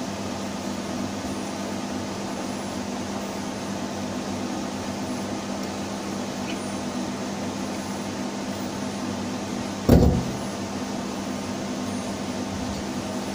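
Steady machinery hum with a constant low droning tone in a boat's engine room, and one sharp thump about ten seconds in.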